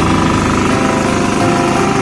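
Diesel engine of a KK-406D power weeder running steadily with a fast, even pulse while the machine works soil between crop rows.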